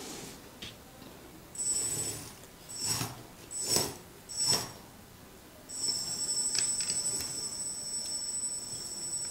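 Electric drive motors of an RC tracked vehicle whining at a high, steady pitch. They come in four short bursts of throttle with knocks from the plastic tracks, then run continuously from about six seconds in as it drives over small wooden pallets.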